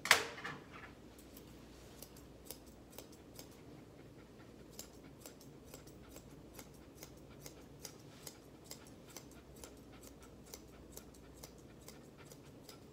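Grooming scissors snipping through a West Highland White Terrier's coat in a steady run of short, crisp snips, about two to three a second. One sharp knock comes right at the start, louder than anything else.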